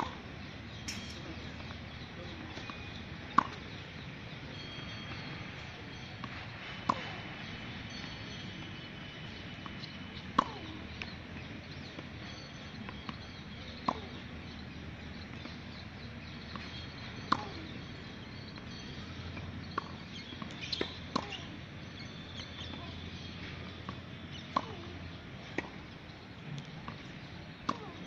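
Tennis racket striking the ball on repeated backhand strokes: a sharp pock about every three and a half seconds, with fainter knocks of the ball bouncing in between.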